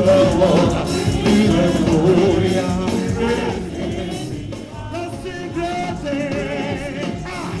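Congregational praise music: voices singing a gospel song over a band with a steady drum beat.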